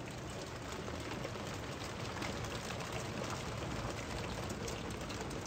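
Rain falling: a steady hiss of drops with many small ticks.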